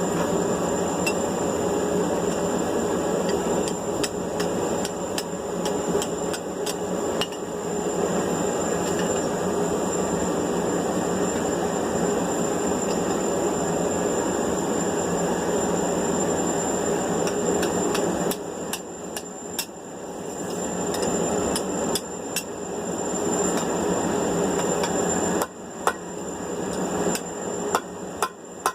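Hand-hammer blows on steel, irregularly spaced, setting a 3/8-inch rivet to join the two halves of a pair of blacksmith's tongs. Under the strikes runs a steady rushing noise that drops away about two-thirds of the way through and again near the end.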